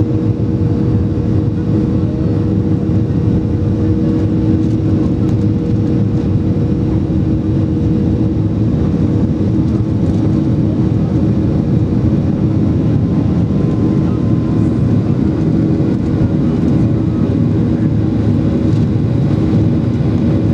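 Cabin noise of a Boeing 737-800's CFM56-7B jet engines running steadily, a low rumble with two steady tones, the higher of which fades about eight or nine seconds in. Heard from inside the cabin over the wing.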